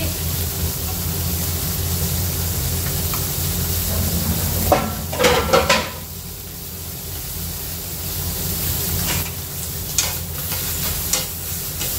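Whelk pieces and baby corn sizzling steadily in hot oil in a frying pan over a gas flame. About five seconds in there is a short burst of clatter, and near the end a utensil taps in the pan a few times as the food is turned.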